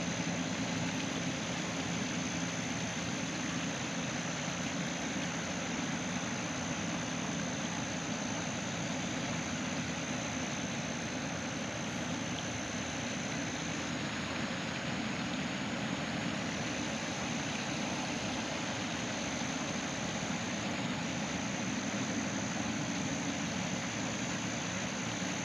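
Steady outdoor background noise: an even hiss with a faint low hum and a thin, steady high-pitched whine that drops out briefly twice past the middle.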